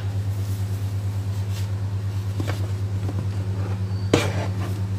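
A steady low hum, with a few light knocks and one sharp clank about four seconds in as a metal pan topped with a ceramic plate is flipped over and set down on a wooden board.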